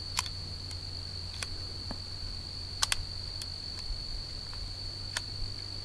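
Steady high-pitched insect trilling, with a few sharp clicks scattered through it, from the jammed Whitney Wolverine .22 pistol being handled.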